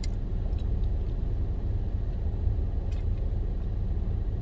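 Steady low rumble of a car, heard inside the cabin, with a couple of faint clicks.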